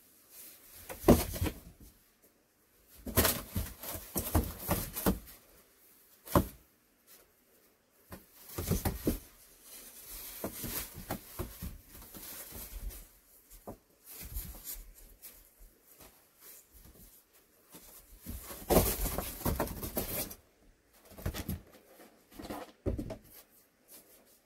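Kittens play-fighting on a board: irregular bursts of claws scratching and paws scuffling, with sharp clicks and light knocks.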